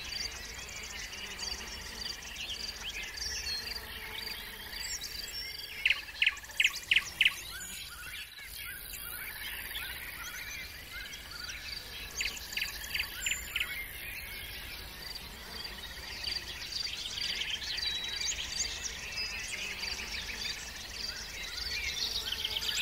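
Several birds singing and calling, with a steady high chirp repeated evenly about four times a second beneath them. A bird gives a loud run of about five sharp chirps some six seconds in, and another run around twelve to fourteen seconds.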